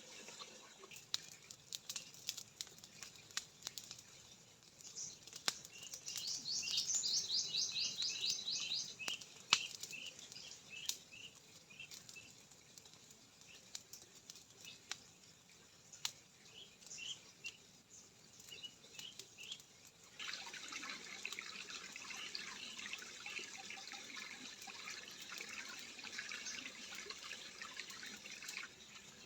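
A songbird sings a rapid trilled phrase about five seconds in, followed by scattered short chirps, over sharp clicks and pops. About twenty seconds in, a steady rush of running water starts and continues.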